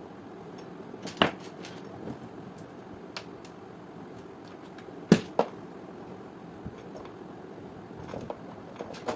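Scattered clicks and knocks of small parts and tools being handled while a steam iron is worked on, with two louder knocks about a second in and about five seconds in, over a faint steady hiss.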